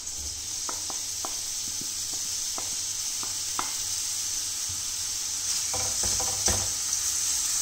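Chopped onion sizzling in hot oil in a stainless steel frying pan, a steady hiss that grows slowly louder, with scattered light taps and clicks from stirring with a wooden spoon.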